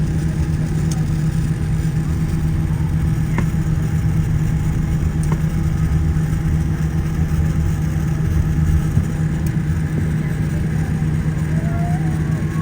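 Steady low drone of a taxiing airliner's jet engines, holding an even level.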